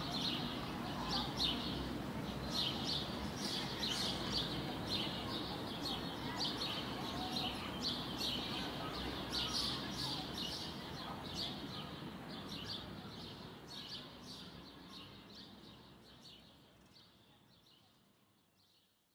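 Many small birds chirping in quick, overlapping calls over a low background rumble, the whole fading out gradually to silence near the end.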